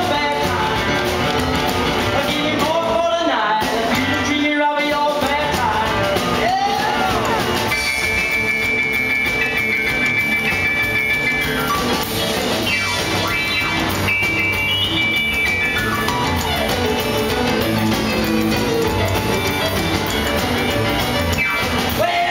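Live rock and roll band: a stage keyboard played as a piano over a drum kit, with a man singing in places and the piano carrying the middle on its own.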